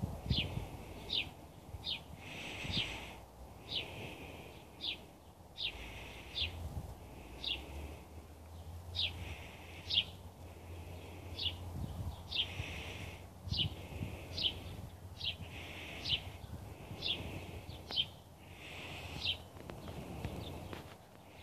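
A bird chirping repeatedly outside, short chirps that fall in pitch, about one a second and sometimes in close pairs.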